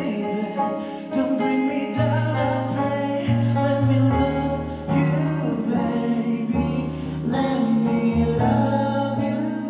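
A man singing a slow love song live into a microphone, accompanied by a Nord stage piano playing sustained chords over a low bass line that changes about once a second.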